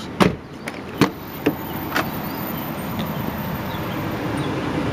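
Four sharp clicks and knocks in the first two seconds as a car's door and interior are handled, then a steady hum that slowly grows a little louder.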